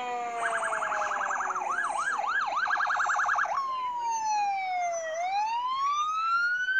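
Electronic siren of a fire engine cycling through its tones. First a fast yelp, which slows to a slower whoop for a moment and then speeds up again. About three and a half seconds in it switches to a long wail that falls in pitch and then rises again.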